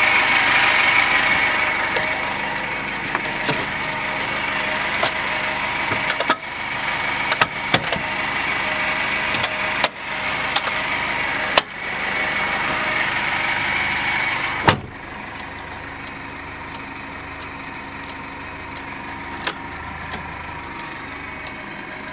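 A GAZelle Next van's diesel engine idling steadily, with scattered clicks and knocks from the door and cab fittings being handled. About 15 s in, a door slams shut, and after that the idle sounds quieter and muffled.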